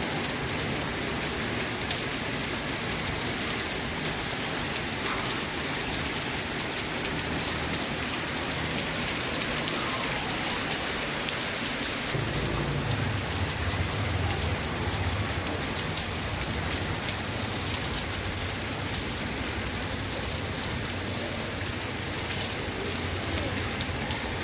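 Heavy rain pouring steadily, with the sharp ticks of drops striking surfaces close by. About halfway through, a low steady hum joins underneath.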